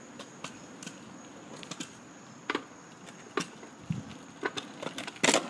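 Kick scooter's small wheels rolling on pavement, with irregular sharp clicks and knocks over a faint rolling noise; the loudest knocks come near the end.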